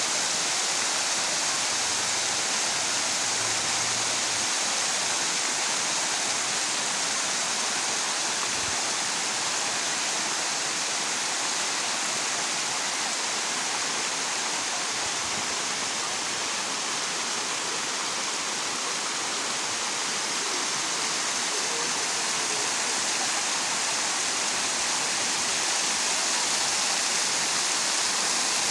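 Hot spring water cascading and splashing over steaming mineral terraces into shallow pools, a steady rushing hiss with no breaks.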